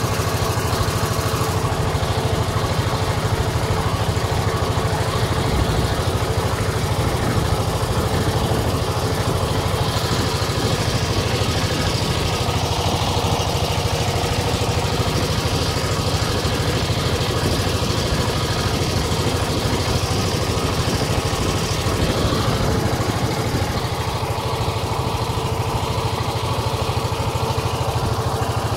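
A motorboat's engine running steadily at an even speed, a constant drone.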